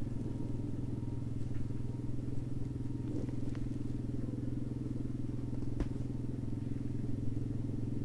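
A steady low mechanical hum, like a motor running, with a few faint clicks.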